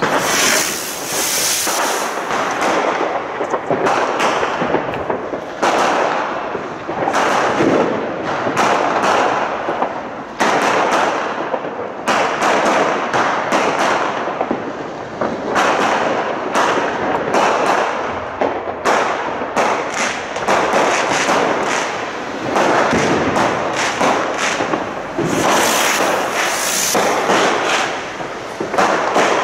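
Fireworks and firecrackers going off in a dense, unbroken barrage of bangs and crackles, several a second.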